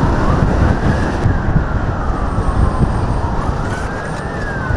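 Wailing siren of a VIP motorcade, sweeping slowly up and down in pitch over loud wind and road rumble.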